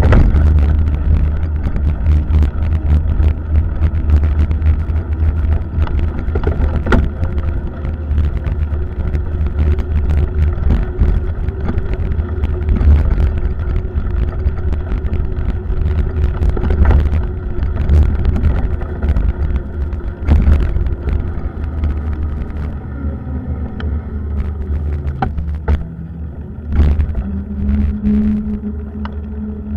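Wind rumbling on the microphone of a bicycle-mounted camera at riding speed, with road noise and frequent short knocks and rattles from bumps in the pavement. It gets quieter in the last several seconds as the bike slows into a corner.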